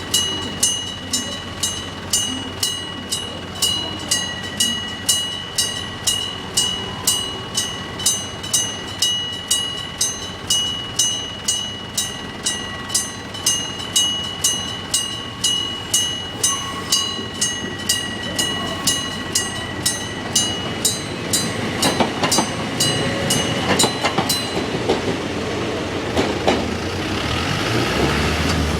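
Electric bell of a railway level crossing ringing steadily, about two strikes a second: the crossing's warning for an approaching train. A train runs over the crossing with a rising rumble and wheel knocks from about 21 seconds in, and the bell stops a few seconds later.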